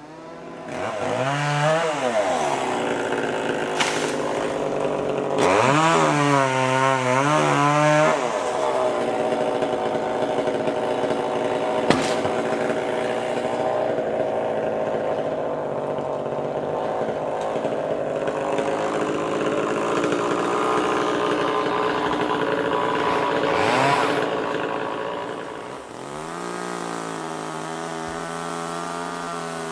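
Chainsaw revving twice in short surges, then running steadily at speed for a long stretch while cutting into Canary Island pine wood. About 26 seconds in it eases back to a lower, steady running speed.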